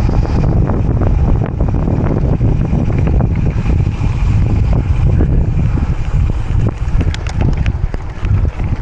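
Heavy wind buffeting the microphone of a gravel bike in motion, with steady rumble and scattered clicks and rattles from the bike running over the rough dirt surface.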